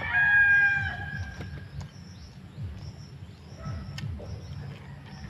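Rooster crowing, a long call that ends about two seconds in, with a steady low rumble underneath.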